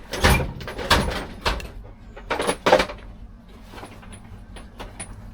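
A run of sharp metallic knocks and clanks, about five in the first three seconds, then quieter handling noise.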